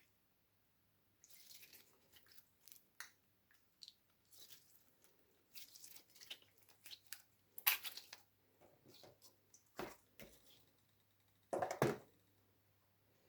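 Slime being squeezed and worked, irregular sticky squelches and wet crackling pops, with the loudest squelches about halfway through and near the end.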